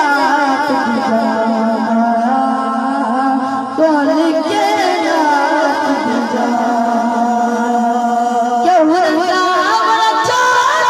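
A boy singing a Punjabi naat into a microphone over a sound system, with long held notes and fast wavering ornaments.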